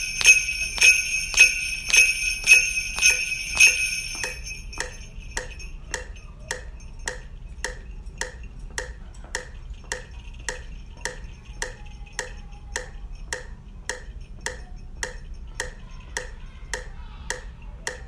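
Sleigh bells shaken once on each beat for about four seconds over a metronome clicking at 105 beats per minute. The bells then stop and the metronome clicks on alone.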